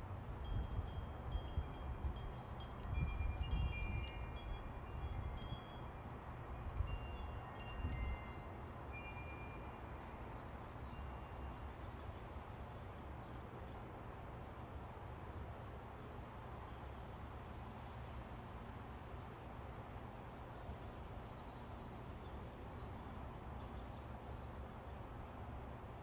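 Two metal-tube wind chimes ringing as the wind sways them. Several clear tones overlap in the first ten seconds or so, along with a low rumble, and then the chimes die away to a faint steady hiss.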